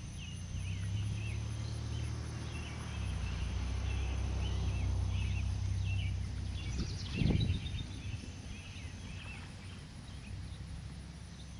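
Outdoor pond-side ambience: small birds chirping and twittering over a low steady rumble, with one brief louder burst about seven seconds in.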